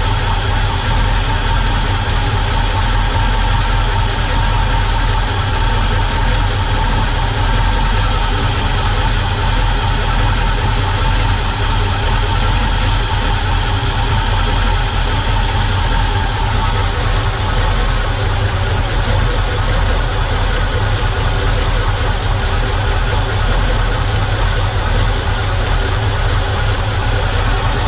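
Holden Commodore engine, cammed and fitted with a 660 carburettor, idling steadily with a cammy note while the carburettor is being tuned.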